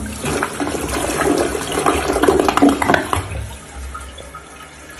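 Toilet flushing: water rushing and swirling around the bowl, loudest for the first three seconds, then settling to a quieter steady run as the bowl refills.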